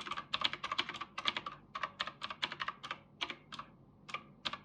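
Typing on a computer keyboard: fast runs of key clicks for about three seconds, thinning out to a few scattered keystrokes near the end.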